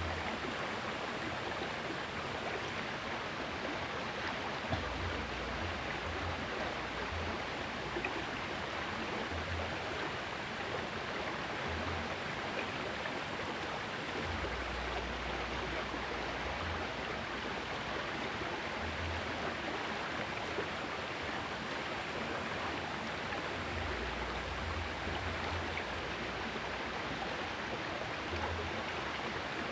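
Small river's water running steadily, with intermittent low rumbles underneath and a few faint clicks.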